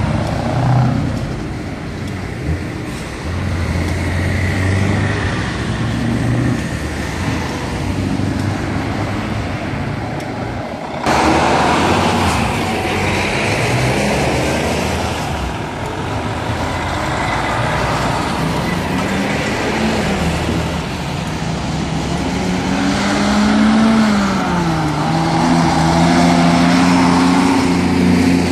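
A line of heavy trucks driving past, their diesel engines running and pulling away over steady traffic noise. Near the end one truck's engine climbs in pitch, drops at a gear change and then holds steady.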